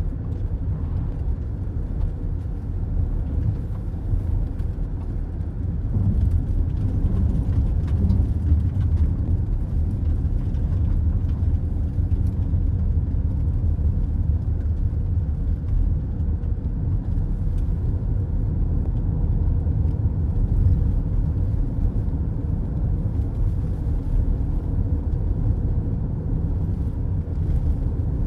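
Steady road noise inside a moving car's cabin: a low, even rumble of tyres and engine.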